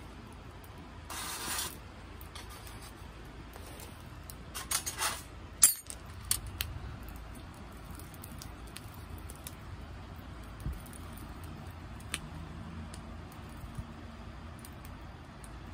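Metal camp cookware being handled: a cook pot and its lid clink and scrape against the steel stove plate, with two short scraping rustles and one sharp metallic clack about five and a half seconds in, then a few lighter clicks.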